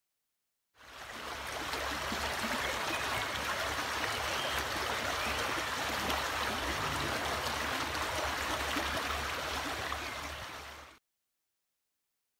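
Shallow woodland stream flowing over stones, a steady rushing of water that fades in about a second in and fades out near the end.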